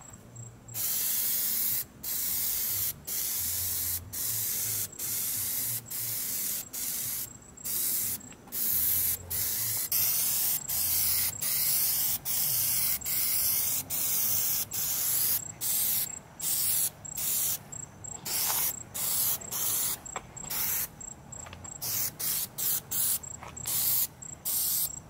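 Plasti Dip aerosol spray can hissing as it lays on the final coat, in a string of bursts of up to a second or two with short breaks between them. The bursts grow shorter and quicker toward the end.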